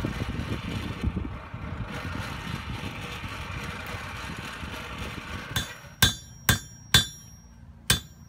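A steady rushing noise, then about five and a half seconds in a hand hammer starts striking a blacksmith's anvil: five sharp ringing blows, about two a second, with a short pause before the last.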